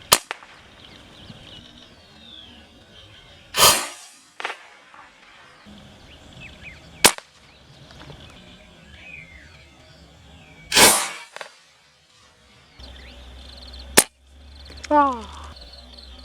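.22 air rifles firing, a sharp report every three to four seconds, over faint background music.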